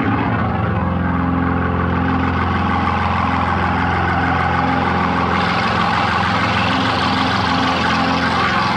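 Hammond organ holding a long, steady low chord, with brighter high notes coming in about five seconds in.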